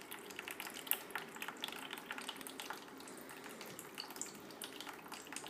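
Thin stream of water trickling from a kitchen mixer tap into a stainless-steel sink, with faint, irregular little splashes and drips.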